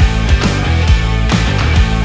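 Background rock music with a steady drum beat and bass.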